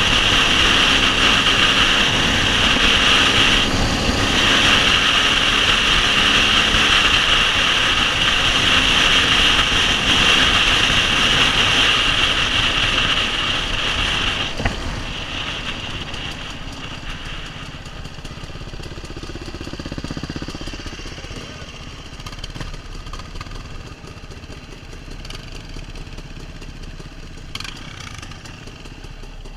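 KTM 300 two-stroke dirt bike engine running while riding, heard from a helmet-mounted camera. It is loud and steady for the first half, then gets clearly quieter about halfway through, with a few short blips near the end.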